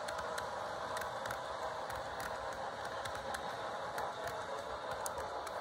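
HO scale model steam locomotive running along the track: a steady whir from its electric motor and gearing, with scattered light clicks.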